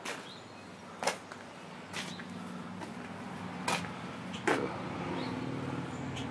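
A low motor hum that comes in about two seconds in and grows a little louder, with several sharp clicks and knocks scattered through it.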